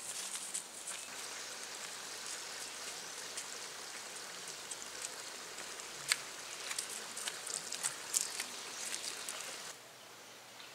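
Steady hiss of running water from a small stream, with scattered small ticks and patters, falling away sharply near the end.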